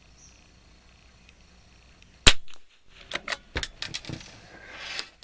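A single .22 rimfire shot from a Kimber 82G bolt-action target rifle about two seconds in, followed by a quick run of metallic clicks from the bolt being worked to eject the case and load the next round.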